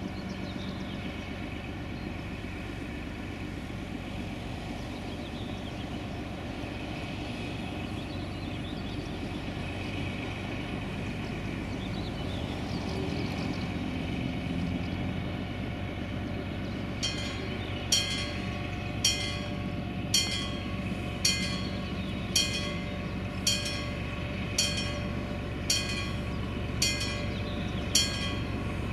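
Six-cylinder diesel engine of a 1952 Frichs diesel locomotive running steadily as it hauls its train slowly closer, growing gradually louder. From about halfway on, a sharp click comes roughly once a second.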